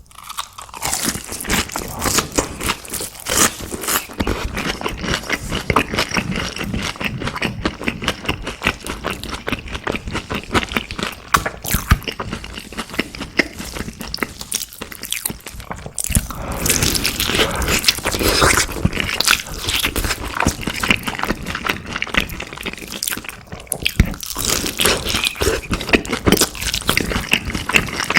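Close-miked crunchy eating: a person biting into and chewing crisp fried food, a steady run of crackling crunches that grows busier and louder in the middle stretch.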